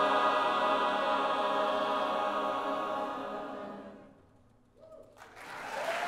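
A large choir with band and orchestra holding a final sustained chord that fades out about four seconds in. After a brief hush, a cheer goes up and audience applause starts near the end.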